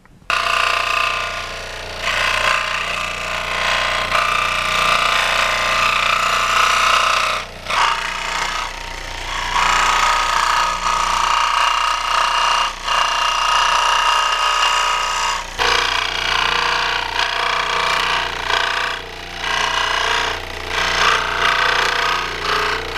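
Dremel scroll saw running, its reciprocating blade cutting through a carbon fiber sheet, with a steady motor hum underneath. It starts abruptly just after the beginning, and the cutting noise dips briefly several times.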